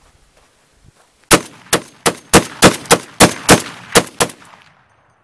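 Vigilance Rifles M14 .50 BMG gas-operated, piston-driven semi-automatic rifle firing a fast string of about ten loud shots in roughly three seconds, starting a little over a second in.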